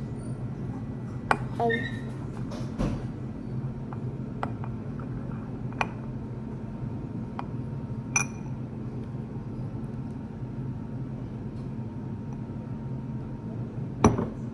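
A few light clinks and taps, scattered and several seconds apart, the sharpest near the end, over a steady low hum.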